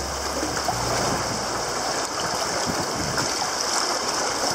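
Rough, churning sea water rushing around a sea kayak's hull as it paddles through white water, a steady rushing noise.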